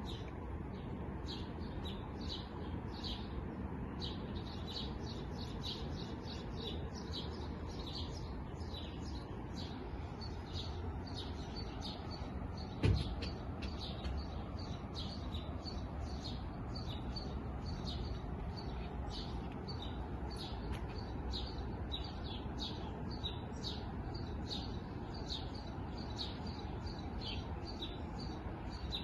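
A chorus of many small birds chirping and twittering continuously in quick short notes, over a steady low background rumble. A single thump about 13 seconds in.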